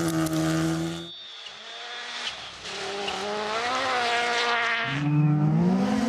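Rally car engines driven hard on a stage: one cuts off abruptly about a second in, then another comes in, its pitch rising and falling and then climbing steadily near the end as it accelerates.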